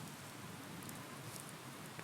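Wood campfire burning with a steady soft hiss and faint, scattered crackles.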